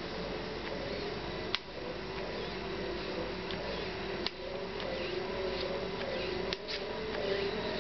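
Medela Personal double electric breast pump running: its small motor makes a wavering hum, with a sharp click a few times.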